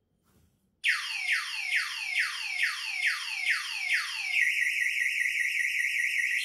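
Electronic alarm siren on a scooter goes off about a second in. It gives a string of high falling sweeps, about two a second, then switches to a fast high warble.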